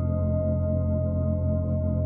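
Calm ambient relaxation music: steady, held drone tones with no beat.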